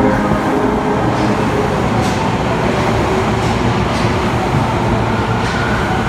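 Osaka Metro 10A-series subway train moving alongside the platform, a steady rumble and hiss with several sharp wheel clicks. Its motor whine rises slightly near the end.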